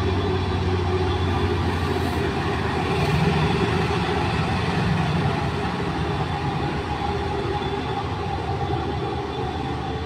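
Heavy diesel engine of a logging truck running steadily under load as the truck descends a steep dirt slope.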